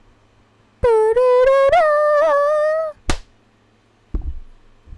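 A high voice holds one long note for about two seconds, wavering slightly in pitch. A sharp click follows, then a few soft low thumps near the end.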